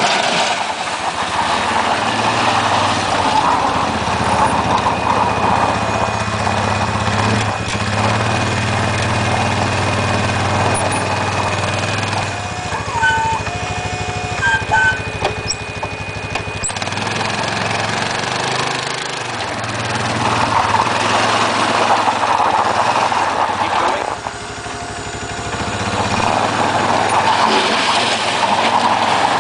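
ATV engine running under load while its front-end loader pushes and lifts snow, revving up and easing off in turn with the work.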